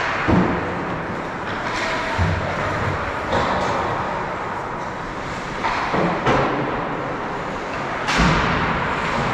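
Ice hockey play on the rink: skate blades scraping and carving on the ice under a steady noise, with several sharp knocks and thuds of sticks, puck and bodies against the boards, the loudest near the start and about eight seconds in.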